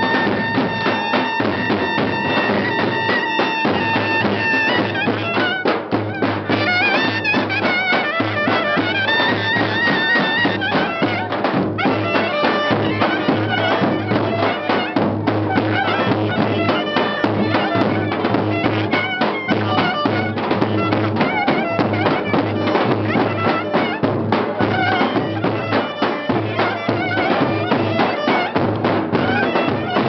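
Live Turkish folk dance music: a shrill reed wind instrument plays a fast, ornamented melody over the steady strokes of a davul bass drum.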